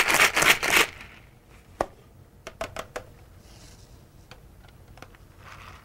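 Ice rattling in a cocktail shaker (metal tin over a plastic cup) during a quick little shake, about six strokes a second, stopping about a second in. After that, a few light clicks and knocks as the shaker is opened and handled.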